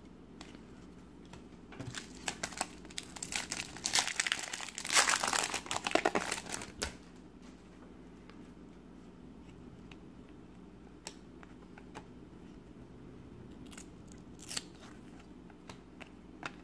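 Foil wrapper of a Topps Finest basketball card pack crinkling and tearing as it is opened, a spell of dense crackling from about two to seven seconds in. After that only a few faint clicks as the cards are handled.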